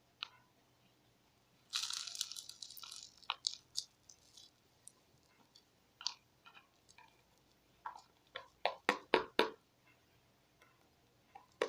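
Detergent being emptied from its packaging into a bowl, with crinkling and crunching handling noise. There is a rustling pour about two seconds in, scattered clicks, then a quick run of sharp taps toward the end.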